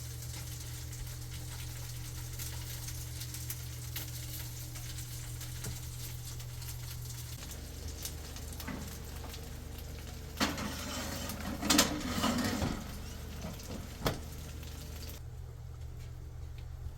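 Food sizzling in a frying pan, with small crackles, and a spell of clinks and scrapes of a utensil in the pan about two-thirds of the way through. The sizzle falls away near the end.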